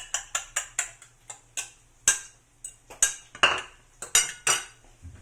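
A cooking utensil knocking and clattering against a pan while eggs are beaten and scrambled in it. Quick strokes come about six a second at first, then slower, scattered knocks.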